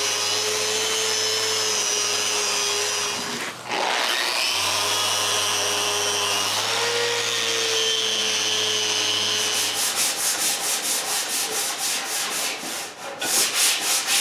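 Electric sander running steadily while stripping old varnish from wood, stopping briefly about three and a half seconds in and then again near ten seconds. After that comes rapid back-and-forth rubbing, about three to four strokes a second, as the wood is sanded by hand.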